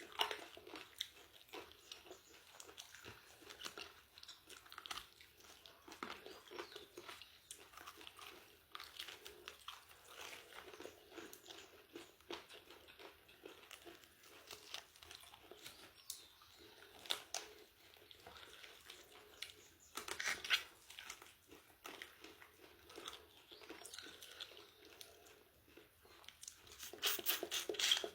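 Close-up eating sounds: crunching and chewing of fried chicken chicharrón, in many irregular bites with louder crunches near the end.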